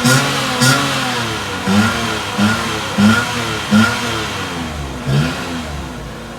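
Daihatsu Mira's small petrol engine revved in about seven quick throttle blips, each rising and falling back, then settling toward idle after about five seconds. The exhaust note is heard through the silencer.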